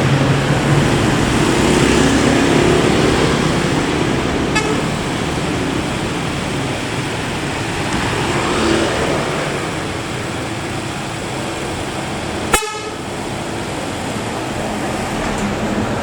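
Scania K410 bus running along the road with steady engine and road noise, its basuri multi-tone telolet air horn sounding. A single sharp click a few seconds before the end.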